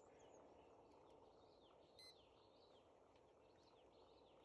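Near silence with faint bird chirps, and one short beep about two seconds in.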